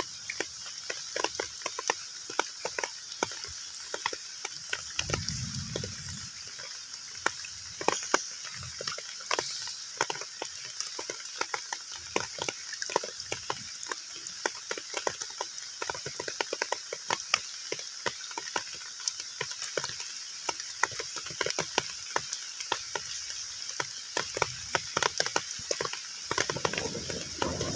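Heavy rain falling on a pond's surface: a steady hiss with a dense, irregular patter of individual drops striking the water. A brief low rumble comes about five seconds in.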